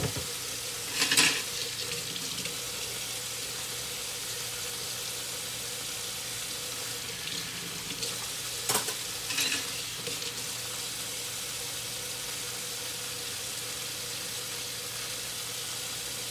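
Dishes and silverware clinking a few times, once about a second in and twice around nine seconds in, over a steady hiss during hand dish-washing.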